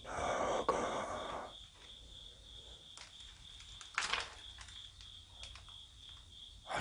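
A cricket chirping in a steady, even high pulse, about four chirps a second. A short rustle comes in the first second or so, and there are two sharp clicks about three and four seconds in.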